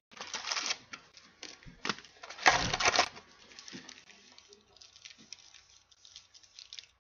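Wrapped trading-card packs crinkling and rustling as hands rummage through a cardboard hobby box. A louder burst of crinkling comes about two and a half seconds in, then quieter scattered rustles and taps.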